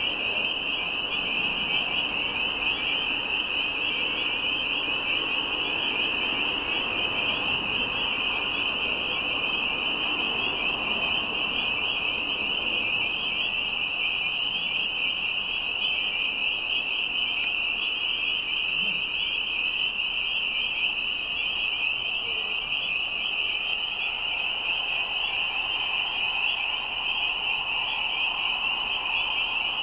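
A dense chorus of spring peepers: many high peeping calls merge into one steady, shrill ringing that does not let up.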